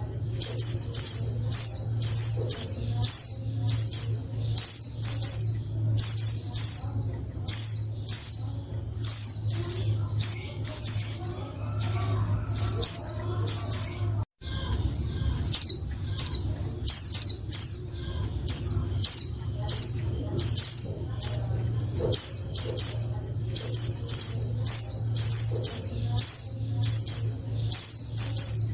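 Female white-eye (pleci) calling: short, high, falling chirps in quick clusters of two or three, repeated about once a second, with a brief break about halfway. A steady low hum runs underneath.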